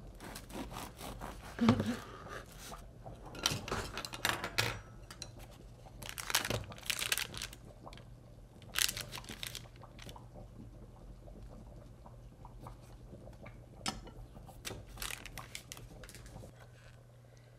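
A serrated bread knife sawing through a crusty loaf in quick rasping, crunching strokes. Then the crinkle of butter's paper wrapper and a knife scraping at the butter.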